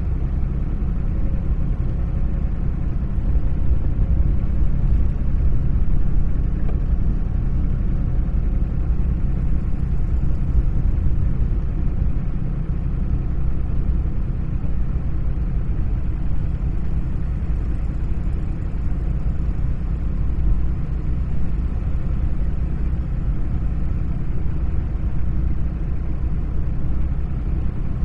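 Steady low rumble, even and unbroken, with no distinct events.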